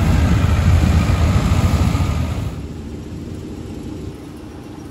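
Sonalika tractor's diesel engine running hard under load as it pulls a loaded grain trailer, a heavy low rumble. About two and a half seconds in this cuts to a much quieter, steady machine hum.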